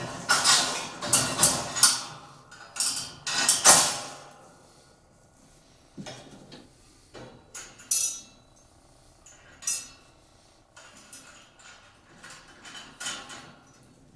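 Steel bolts, washers and nuts clinking and knocking against a steel carrier frame as they are handled. A busy run of metallic clinks for the first four seconds, then single clicks every second or two.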